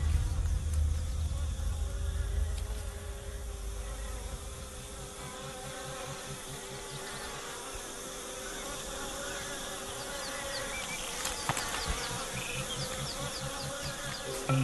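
A swarm of flies buzzing around lions, a steady drone of several overlapping pitches. A low rumble fades out over the first few seconds.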